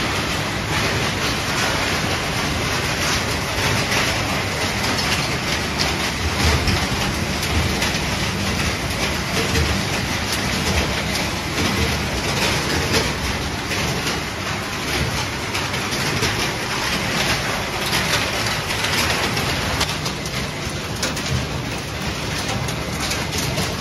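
Refrigerator shredding and sorting line running: a steady mechanical din with a dense rattle of shredded plastic and metal fragments clattering through the feeder and along the conveyor.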